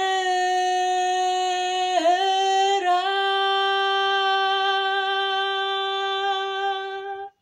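A woman singing a Shona worship song unaccompanied, holding one long note that steps up a little in pitch twice in the first three seconds, then stops just before the end.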